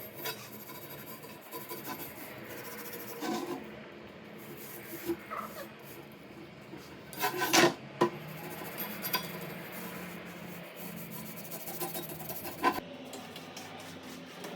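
Irregular hand scraping and rubbing on metal, with scattered small clicks and one louder knock about halfway through.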